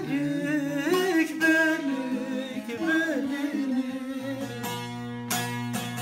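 Bağlama (saz) being played while a voice sings a slow Turkish folk melody over it, the voice sliding and bending between notes.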